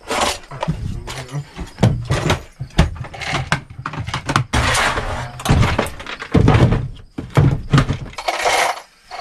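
Plastic tool-storage boxes (Milwaukee Packout organizers) being shifted, opened and set down: a run of knocks, thunks and plastic clatters, with loose screws rattling inside.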